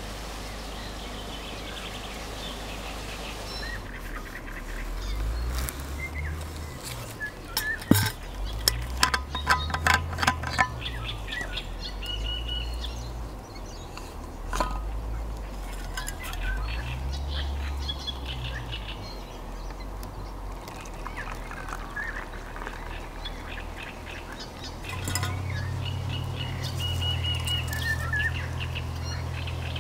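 Small birds chirping and singing, with a cluster of sharp clicks and knocks from handling about eight to eleven seconds in.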